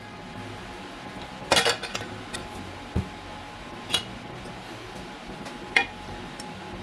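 Small metal parts clinking and knocking as they are handled: a few sharp clinks a second or two apart, one of them a duller knock.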